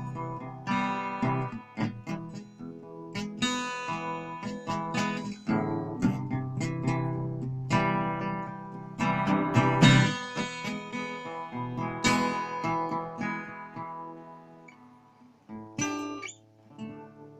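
Acoustic guitar being strummed and picked, playing chords with strong attacks. It dies away about three-quarters of the way through, leaving a few single plucked notes near the end.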